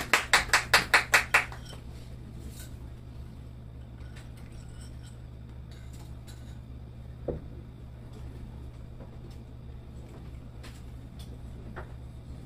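Clapping that stops about a second and a half in. It gives way to a steady low amplifier hum, with scattered small clicks and one short knock as a music stand and sheet music are handled.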